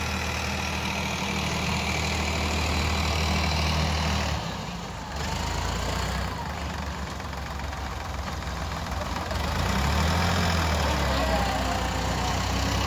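Sonalika DI 744 RX tractor's diesel engine idling steadily, with a brief dip in level about four seconds in.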